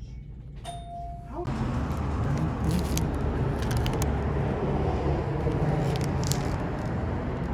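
A short electronic beep about a second in, then a steady low rumble of wind on the microphone outdoors, with a few brief crackles.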